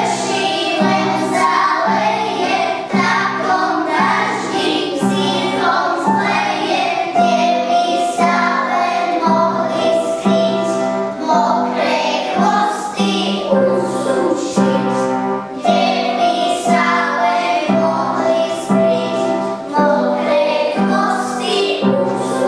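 Children's song: children's singing over an instrumental backing with a steady beat.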